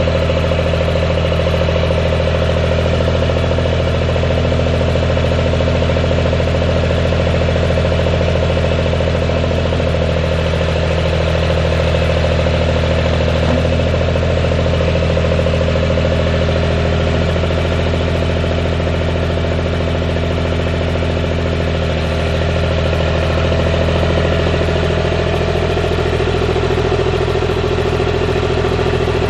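1982 Allis-Chalmers 6140 tractor's Toyosha 2.3-litre three-cylinder diesel engine running steadily at an even speed.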